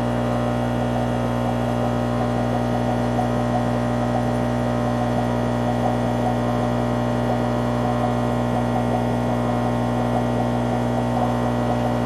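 Aquarium air pump humming steadily at mains frequency, with faint irregular ticking over the hum.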